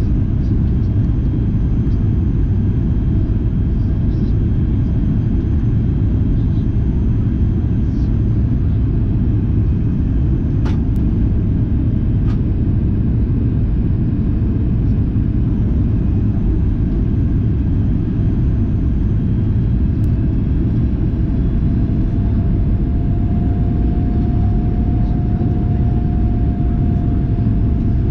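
Cabin noise of a Boeing 737 MAX 8 on final approach: the steady low rumble of its CFM LEAP-1B engines and the airflow, heard from a window seat over the wing. A faint steady tone joins in about two-thirds of the way through.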